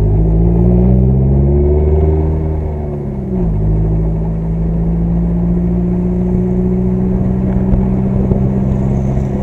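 Car engine heard from inside the cabin while driving, its pitch climbing under acceleration, dropping sharply about three seconds in as at a gear change, then holding steady at cruising speed.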